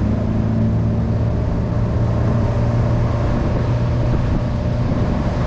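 Small fishing boat's engine running steadily under way, a constant low hum with rushing wind and water noise over it.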